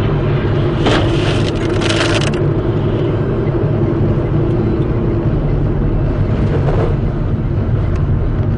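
Car driving on a wet road, heard from inside the cabin: a steady low engine and tyre drone with a faint steady hum. About a second in, a hiss rises over it for just over a second.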